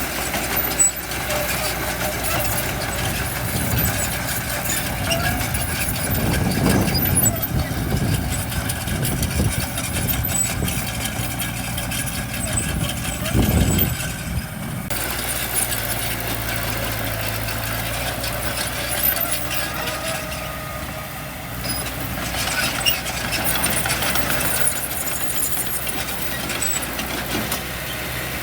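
Diesel engines of heavy earthmoving machinery (dump trucks and a bulldozer) running steadily, with two brief louder surges, about seven and about thirteen seconds in.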